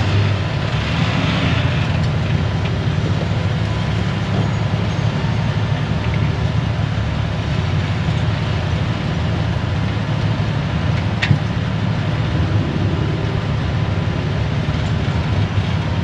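Off-road rock-crawling vehicle's engine running steadily, with one sharp click about eleven seconds in.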